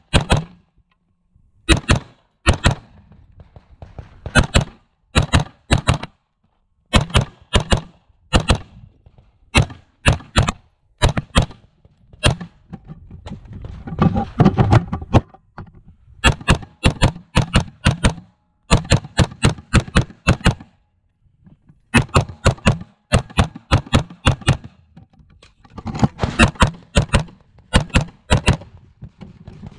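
AR-15 rifle in .223/5.56 firing dozens of shots in quick strings of several rounds each, with short pauses between the strings and a longer pause of about a second past the middle.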